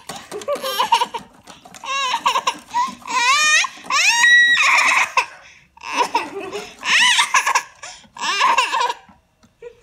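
A young child's high-pitched voice squealing and laughing in about six short bursts, the pitch swooping up and down, with one rising squeal near the middle.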